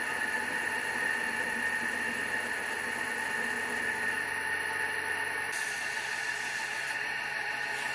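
Homemade lathe running on its new spindle on tapered roller bearings, with a steady whine from its drive. About five and a half seconds in, sandpaper is pressed against the spinning metal faceplate and adds a hiss. The hiss breaks off briefly and returns near the end.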